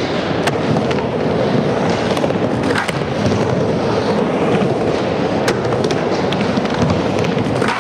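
Skateboard wheels rolling steadily around a skate bowl, a loud continuous rumble with a few sharp clacks from the board and trucks.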